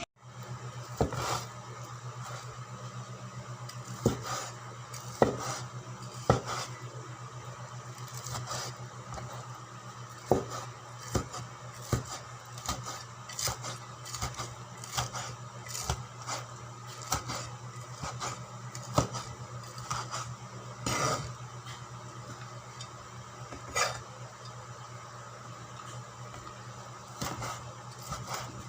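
Metal kitchen utensils knocking and scraping on cookware while food is prepared: irregular sharp clacks, roughly one or two a second, over a steady low hum.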